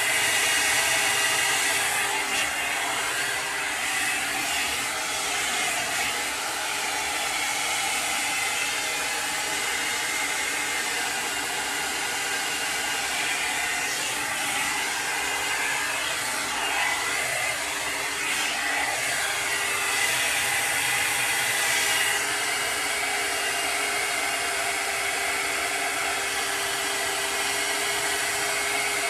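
Steady whirring blower noise, a motor driving a fan, with a few steady tones over an even hiss and a slight change in character about two seconds in and again near twenty-two seconds.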